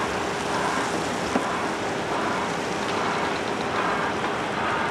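Airbus A321neo airliner's twin jet engines at takeoff power during the takeoff roll, heard from a distance as a steady, even rush of engine noise with a faint steady hum.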